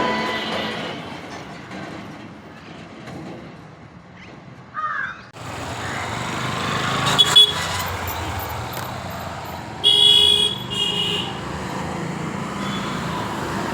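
Road traffic noise with a vehicle horn honking twice, briefly, about ten seconds in; the background changes abruptly about five seconds in.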